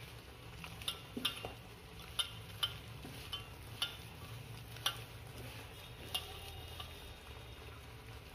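A hand mixing and kneading rice flour with water in a stainless steel bowl: soft stirring with scattered light clicks against the steel, roughly one a second.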